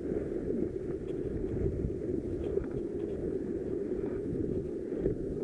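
Steady low rumble of wind on the microphone mixed with sea waves washing over shoreline rocks, with a few faint ticks.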